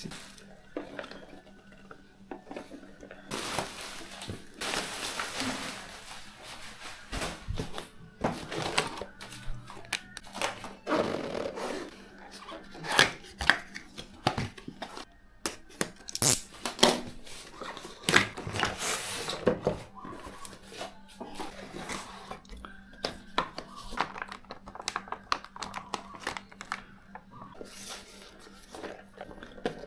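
Computer parts and their packaging being handled: plastic and cardboard rustling, with scattered sharp clicks and light knocks of hard plastic and metal, over a faint steady hum.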